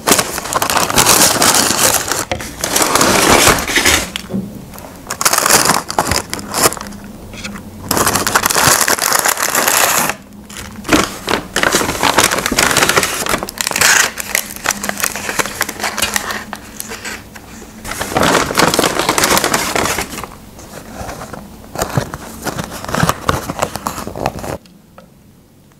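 Paper fast-food bags and cardboard food boxes crinkling and rustling as takeaway food is unpacked, in loud bursts with short pauses; it stops about a second before the end.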